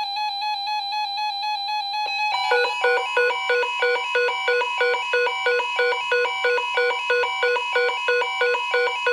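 Electronic alert tones: a steady, slightly pulsing beep, then from about two seconds in a fast two-pitch warble that jumps between a low note and one an octave higher about two and a half times a second.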